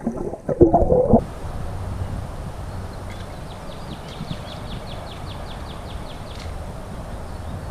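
Muffled thumps and sloshing picked up underwater through a waterproof camera housing for about the first second. Then a steady low outdoor rumble, with a songbird singing a fast trill of about fifteen quick down-slurred notes from about three seconds in.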